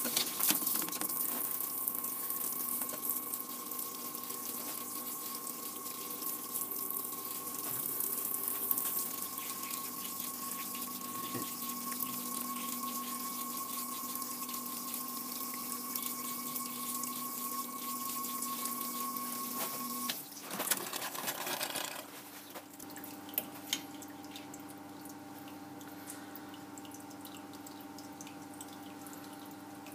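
Flood coolant splashing onto a steel workpiece spinning in a lathe chuck, with the lathe running under it in a steady whine; the coolant is cooling the part, which has got hot from machining. About 21 seconds in the lathe stops, leaving a quieter steady hum with a few light clicks and drips.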